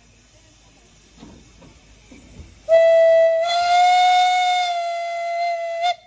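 Narrow-gauge steam locomotive's whistle blowing one long, steady blast of about three seconds that starts suddenly and cuts off sharply, after a few seconds of faint hissing.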